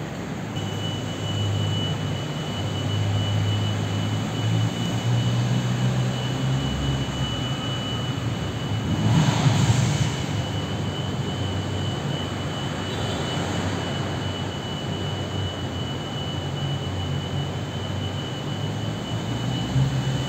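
Honda CBR650R's inline-four engine on its stock exhaust, running as the bike rides through an enclosed concrete parking garage, the sound echoing off the walls. It swells loudest about nine seconds in, then settles to a steady drone.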